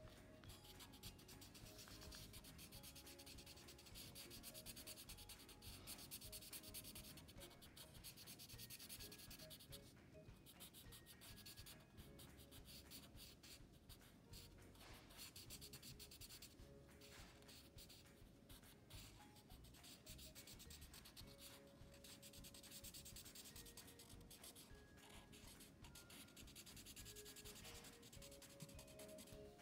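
A Sharpie fine-point permanent marker rubbing on paper as it fills in a black patch, faint scratchy strokes in stretches with brief pauses.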